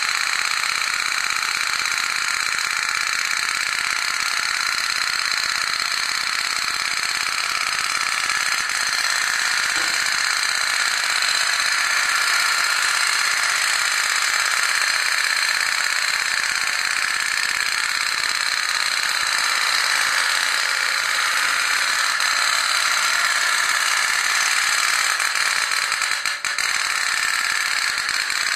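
Aluminium pop-pop steam boat toy (otok-otok) running: its little water boiler, heated by a burning oil-soaked cotton wick, makes a steady, rapid tok-tok-tok rattle as the steam pulses drive the boat along.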